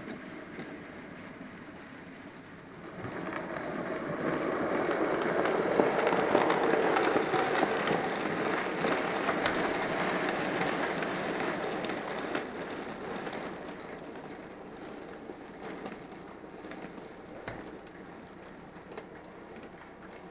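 Model railway goods train of vans and mineral wagons rolling past close by, its wheels rattling and clicking on the rails. It swells about three seconds in and fades as the train draws away.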